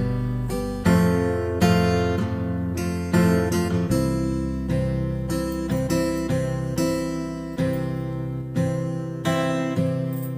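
Background music: a strummed acoustic guitar playing a gentle, steady pattern of chords.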